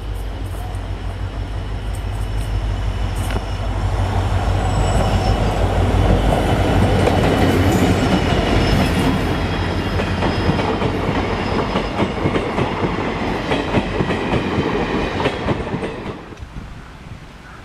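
WDG4 diesel locomotive (EMD two-stroke engine) passing close by with a deep engine rumble that builds to its loudest as the locomotive goes by, followed by the rapid clickety-clack of the coaches' wheels over the rail joints. The sound drops away suddenly near the end.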